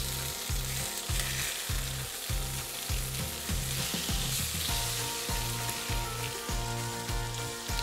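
Flattened pork shoulder cutlets sizzling as they sear in a very hot stainless steel pan with olive oil. A steady background music beat runs underneath.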